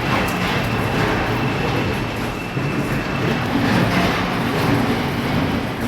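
Heavy machinery running steadily, a continuous low rumble with rattling clatter, and a faint high whine that stops about three seconds in.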